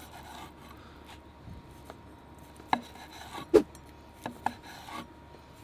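Chef's knife slicing a grilled dry-aged steak on a wooden cutting board: quiet cutting, then a few sharp knocks of the blade on the board in the second half, the loudest a little past the middle.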